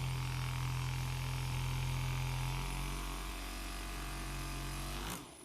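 A small electric motor buzzing steadily with a low hum, cutting off about five seconds in.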